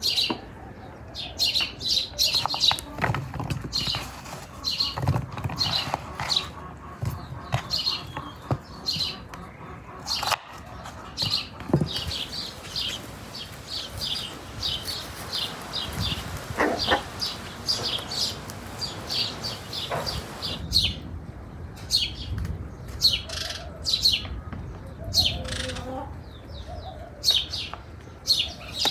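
Small birds chirping over and over in short, high notes, with a few soft knocks in between.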